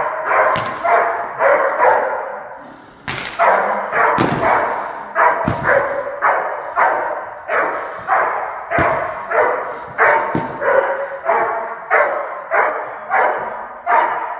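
Dog barking over and over at an even pace, about three barks every two seconds, with a short break about two and a half seconds in.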